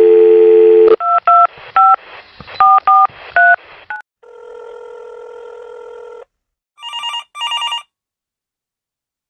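Telephone dial tone, then a number keyed in as about seven touch-tone beeps, followed by a steady tone lasting about two seconds. A phone then rings twice in short electronic bursts.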